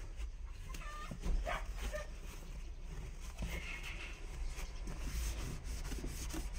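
A few faint animal calls, about a second in and again near the middle, over a steady low hum.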